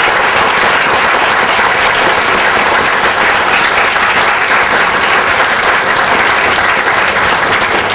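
Audience applauding at the close of a talk: dense, steady clapping from a hall full of people.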